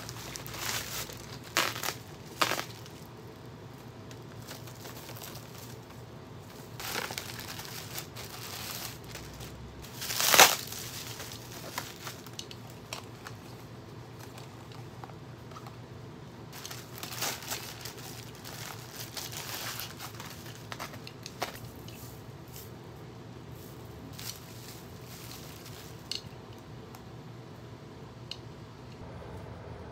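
Packaging being handled: intermittent crinkling and rustling in short bursts, with one louder burst about ten seconds in.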